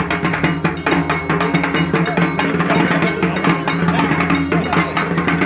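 Dhak, the large Bengali barrel drum, beaten with sticks in a fast, unbroken rhythm.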